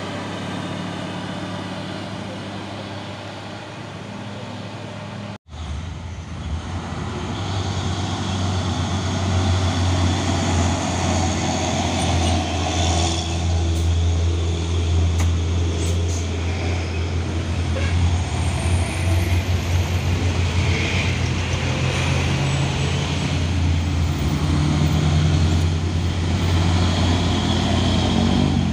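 Heavy diesel truck engines running in slow traffic. The sound drops out for an instant about five seconds in, then a deep, steady engine drone comes in louder, with road traffic noise around it.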